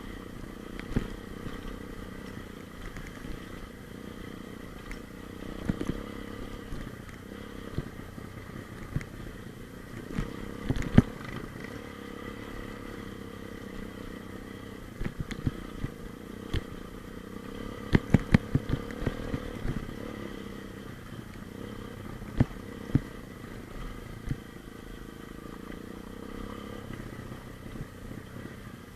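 125 cc pit bike engine running at a fairly steady speed, with scattered sharp knocks and clatter. The loudest knocks come in a cluster around the middle.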